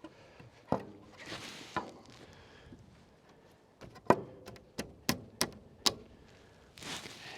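Irregular sharp knocks and taps from handling and fitting a deck railing panel, a cluster of several quick knocks in the middle, the loudest about four seconds in. Two short bursts of rustling hiss, one early and one near the end.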